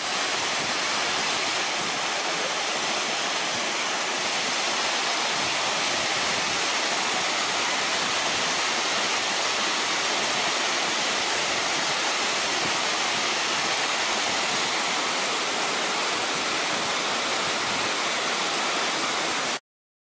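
Waterfall: water pouring down a rock face into a pool, a steady rushing hiss that cuts off suddenly near the end.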